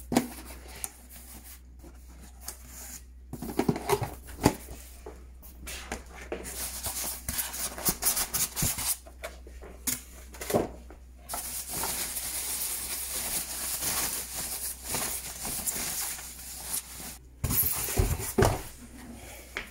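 Unboxing handling sounds: cardboard box flaps and insert scraping and rustling, plastic wrapping crinkling, and scattered clicks and knocks, with a few heavier thumps near the end as the stainless steel pressure cooker and its lid are handled.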